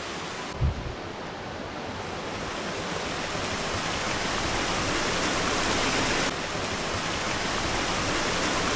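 Woodland stream running, a steady watery rush that grows gradually louder, with a brief low thump about a second in.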